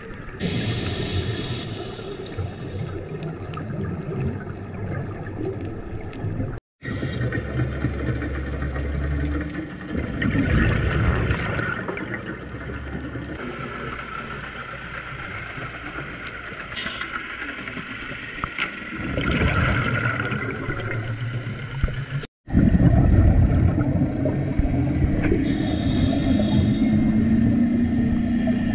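Underwater ambience through a GoPro housing: a scuba diver's regulator breathing, with a low rumble and gurgle of exhaled bubbles swelling every few seconds. The sound drops out briefly twice where clips are joined.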